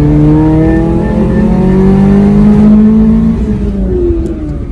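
1990 Acura Integra DA9's 1.8-litre four-cylinder through a GReddy SP2 exhaust, heard inside the cabin, being revved. The revs climb steadily for about two and a half seconds, hold briefly, then drop back near the end.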